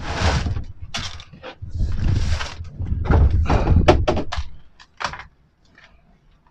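Wind buffeting the microphone in heavy gusts, with rustling and several sharp knocks from fishing gear being handled in a car's open boot about four seconds in.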